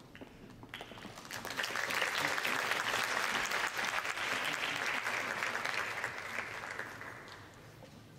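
Audience applause, building about a second in, holding, then dying away near the end.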